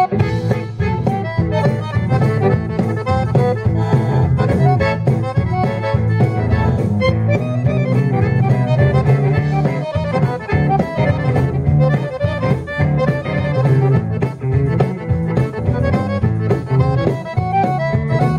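Live band playing an instrumental passage, with a piano accordion to the fore over electric guitar and a steady drum beat.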